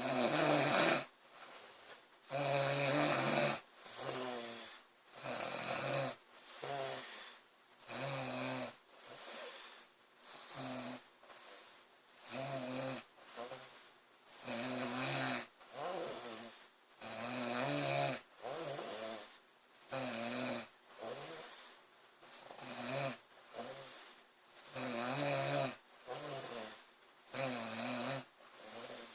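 A woman snoring loudly in a steady rhythm: buzzing, low-pitched snores alternate with breathier, hissing breaths, about one sound every second, starting right at the beginning after a quiet pause.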